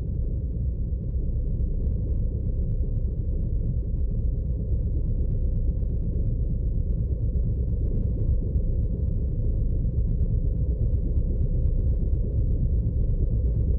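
Steady low rumbling drone with no distinct events, slowly growing a little louder.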